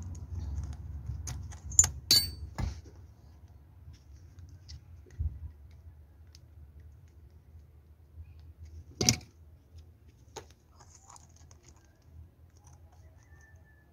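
Scattered metallic clicks and clinks from a spanner and a metal earth clamp on a copper earth rod as the clamp is loosened, taken off and refitted. There is a cluster of clicks in the first three seconds, one of them ringing briefly, and the loudest clink comes about nine seconds in.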